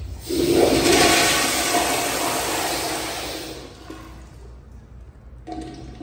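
Sensor-operated flushometer valve flushing a Kohler Kingston Ultra wall-hung toilet bowl: a sudden loud rush of water just after the start, fading away over about three seconds. A quieter rush with a faint whine starts near the end.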